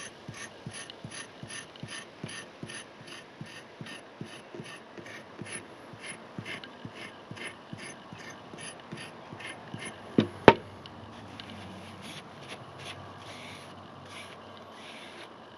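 Japanese sabitoru rubber abrasive rust eraser being scrubbed back and forth along a steel knife blade to take off surface rust: a quick, rhythmic rasping, about three strokes a second. About ten seconds in there are two sharp knocks, and after that the strokes become softer and less regular.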